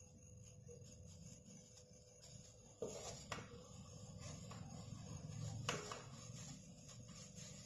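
Faint hand-working sounds as a plastic-gloved hand shapes paratha dough and scoops mashed potato filling from a steel bowl. There are a few sharp clicks, two close together about three seconds in and one near six seconds, over a faint steady hum.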